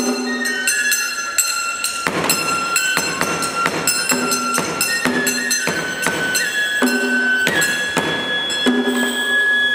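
Live Japanese traditional ensemble music: a high melody line holds and slides between notes over lower pitched notes and repeated sharp percussive strikes.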